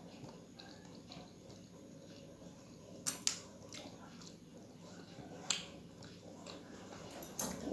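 Close-up eating sounds: quiet chewing with a few short, sharp, wet mouth clicks, a close pair about three seconds in, another past the middle and one near the end.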